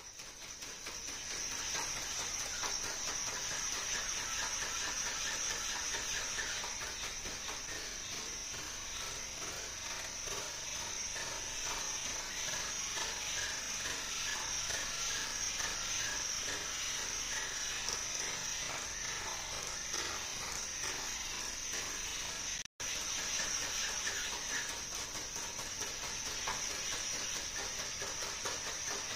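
Dynamixel XM430-W210 servos of a walking quadruped robot giving off a steady high-pitched whine, with faint irregular taps underneath, which may be its feet on the tile floor. The sound cuts out for an instant about three-quarters of the way through.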